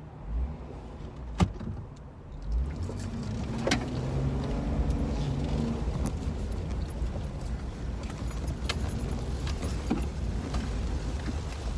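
Jeep driving off-road, heard from inside the cabin: a low engine and tyre rumble that builds about two and a half seconds in, with loose things rattling and a few sharp knocks.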